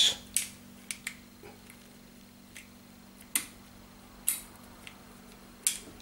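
Tumble dryer door latch clicking as the door catch is pushed into it and rotates to lock: about six sharp clicks at uneven spacing, over a faint steady hum.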